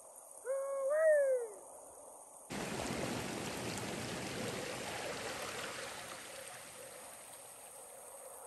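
A short pitched call that rises and then falls, about half a second in. Then, after an abrupt change about two and a half seconds in, a mountain creek rushing, slowly fading.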